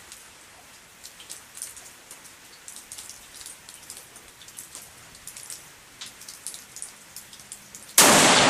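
Faint scattered ticking and patter, then near the end a single loud rifle shot from a Stevens bolt-action .243 with a long echoing tail.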